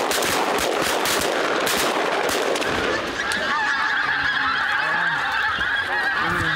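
A big flock of pink-footed geese calling overhead: a dense chorus of many overlapping high-pitched honks. For the first three seconds or so a rushing noise sits under the calls.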